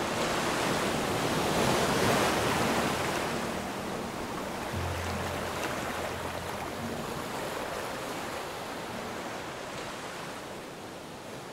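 North Sea surf: waves breaking and washing in a continuous rush, loudest about two seconds in, then slowly fading out near the end.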